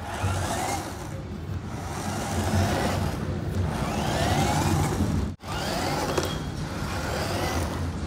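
Small DC gear motors of a cardboard toy RC car running as it drives over concrete, with several short rising whines as the motors speed up. The sound breaks off for an instant about five seconds in.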